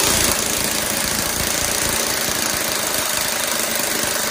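Twin-hammer 3/4-inch drive air impact wrench (Hans 86110) hammering continuously against a bench torque tester, a steady rapid rattle, during a timed five-second torque run.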